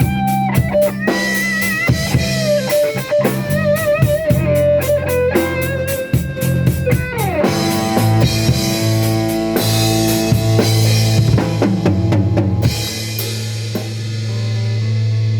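Instrumental break of a rock band: an electric lead guitar plays a melody with vibrato and bends over bass guitar and a drum kit with cymbals. The drums drop out near the end, leaving held guitar and bass notes.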